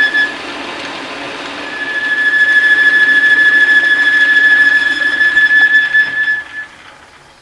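Small metal lathe turning down the end of a go-kart axle, the cut giving off a steady high-pitched squeal over the hum of the running machine. The squeal breaks off briefly about half a second in and returns near two seconds. Near the end the sound falls away as the lathe stops.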